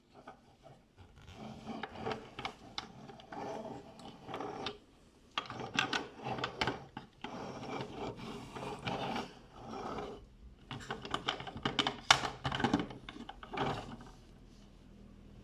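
Plastic toy bulldozer being handled and worked: irregular clicking, rattling and rubbing of plastic parts, in bursts with short pauses, dying down near the end.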